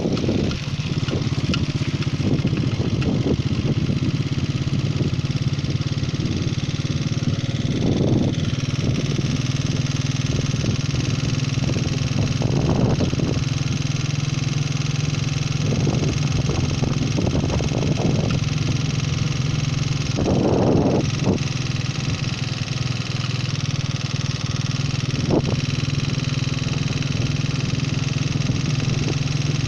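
Small motorcycle engine running steadily while riding along a paved road, with a few brief louder swells.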